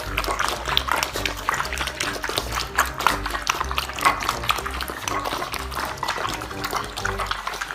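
Background music with a bass line that steps between notes, over many short, sharp clicking noises.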